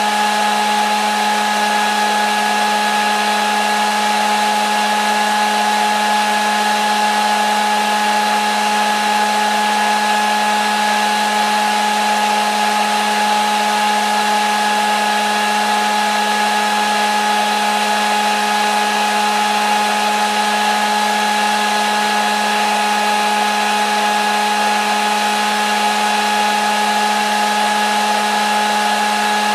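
Hair dryer running steadily: an unchanging motor whine with a low hum over the rush of blown air.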